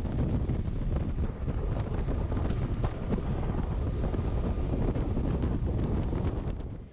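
Wind rushing over the microphone on a boat under way, a steady, uneven buffeting noise with the boat's running sound beneath it.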